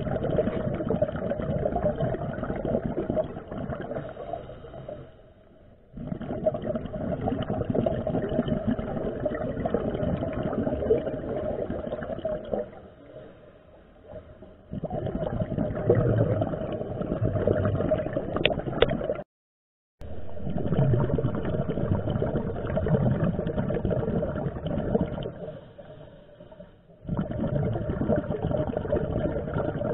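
Underwater sound of a scuba diver breathing through a regulator: bubbling in stretches of several seconds, broken by short quieter pauses in a breathing rhythm, muffled through the camera's underwater housing. The sound cuts out completely for under a second about two-thirds of the way through.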